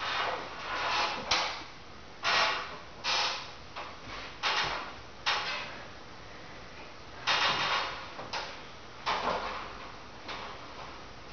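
A person breathing hard with exertion: about a dozen short, sharp rushes of breath at uneven intervals, the loudest in the first half.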